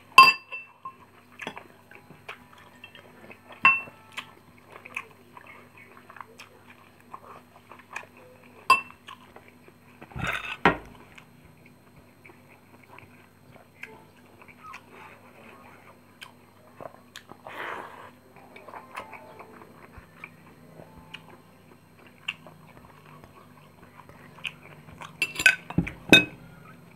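Close-up eating sounds: chewing and mouth noises while rice and fried fish are eaten by hand, with sharp ringing clinks of metal spoons against ceramic bowls and plates, a cluster of them near the end.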